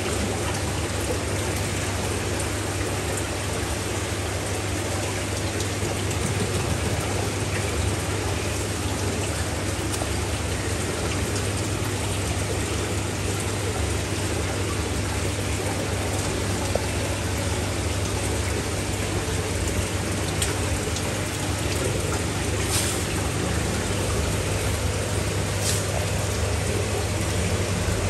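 Steady splashing water noise over a low, steady hum, with a couple of faint ticks near the end.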